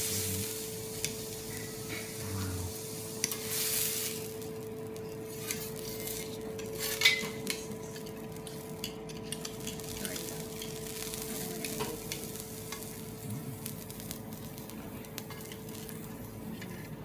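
Seafood sizzling on a teppanyaki steel griddle, with a metal spatula, fork and knife clicking and scraping on the hot plate. The hiss is strongest in the first few seconds, and there is one sharp clack about seven seconds in. A steady hum runs underneath.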